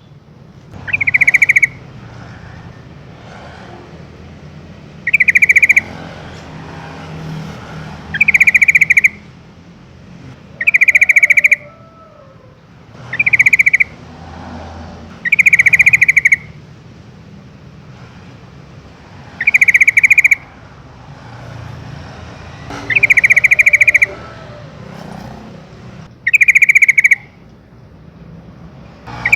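Yellow-vented bulbul calling: short, loud calls repeated about every three seconds, nine in all, over a faint low hum.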